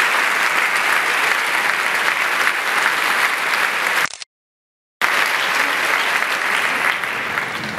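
Crowd applauding steadily, with dense clapping. About four seconds in the sound drops out to complete silence for roughly a second, then the applause resumes.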